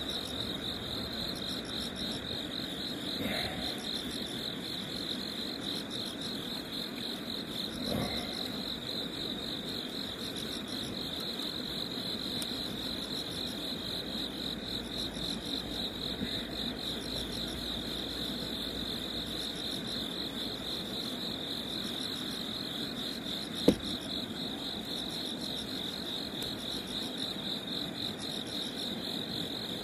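Night insects chirping in a steady, fast-pulsing high trill. A few faint knocks come early on, and one sharp click falls about three-quarters of the way through.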